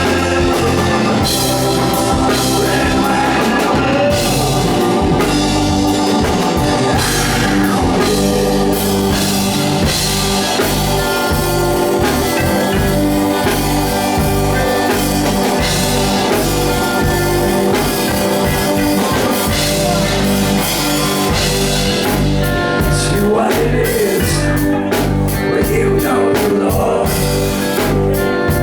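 Blues-rock band playing live: drum kit and guitar, with steady drum hits under held chords.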